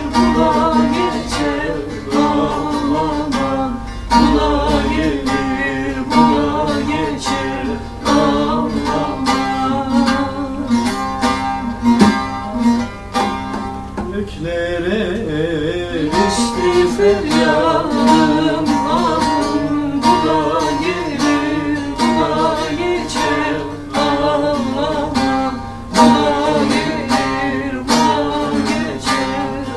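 Instrumental break in a Turkish folk song: plucked string instruments playing the melody over a steady strummed rhythm.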